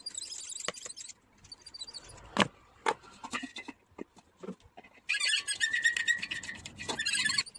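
Spin mop drum and shaft worked with pliers: a high, scratchy squeak for about two seconds near the end and a shorter one at the start, with clicks and knocks of the pliers and metal parts in between. The drum is jammed on its shaft and is being freed.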